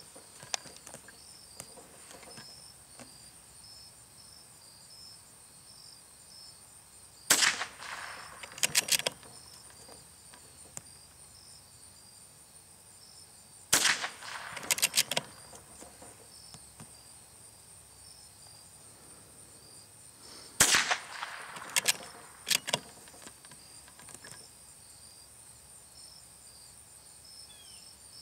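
Three shots from a Marlin Model 25 bolt-action .22 LR rifle, spaced about six to seven seconds apart. Each shot is followed within a second or two by a few sharp metallic clicks as the bolt is worked to eject the case and chamber the next round.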